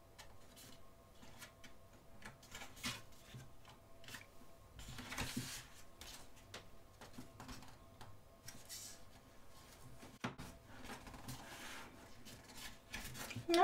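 Pages of a photo book turned by hand: soft paper swishes and light taps, with the louder turns about five seconds in and again near nine.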